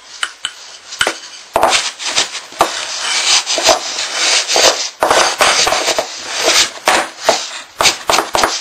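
Wooden rolling pin rolled back and forth over a small lump of stiff dough on a wooden board, making a rubbing rumble. Several sharp knocks come as the pin presses and taps the dough into shape, more of them near the end.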